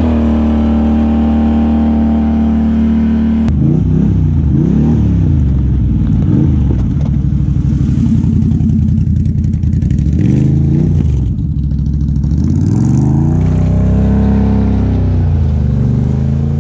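Can-Am Outlander ATV engine running loud at steady high revs, then revving up and down again and again as the quad drifts on bare ice. A longer rise and fall in pitch comes near the end.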